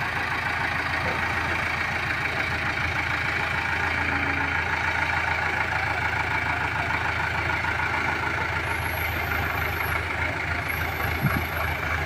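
Diesel engine of an Indo Power 14-tonne hydra crane running steadily as the crane is driven and manoeuvred. A faint high whistle comes and goes in the last few seconds.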